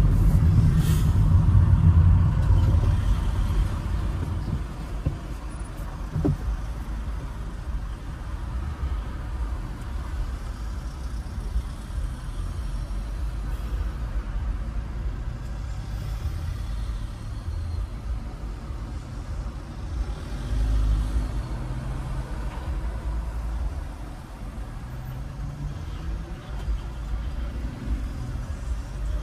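Low, steady rumble of a motor vehicle on the move, engine and road noise, louder for the first few seconds and then even.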